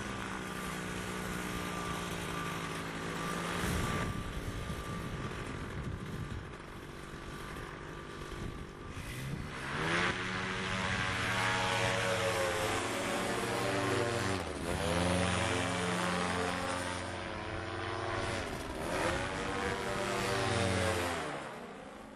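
Paramotor's engine and propeller running, the engine note dropping about 3.5 seconds in and again about 14.5 seconds in as the throttle changes, and growing louder with a sweeping, wavering quality from about 10 seconds in.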